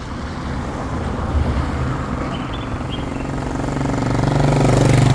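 A motor vehicle's engine running and growing steadily louder as it draws close, loudest near the end.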